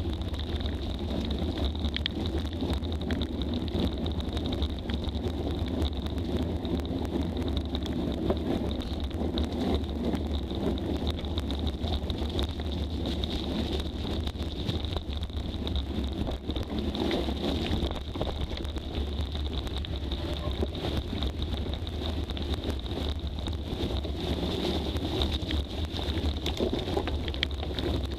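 Wind buffeting the microphone as a bicycle rides fast down a dirt forest trail, with the steady crunch and frequent small rattles and knocks of the bike over the rough ground.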